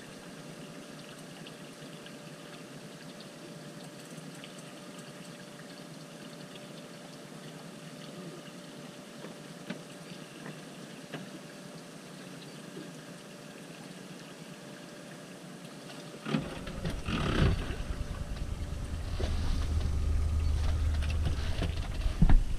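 A quiet, steady hiss of calm water around a drifting boat. About sixteen seconds in it gives way to low rumbling and several knocks as the boat-mounted action camera is handled and moved.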